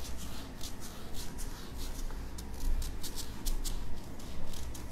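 Marker pen writing on a whiteboard: a quick run of short strokes, several a second.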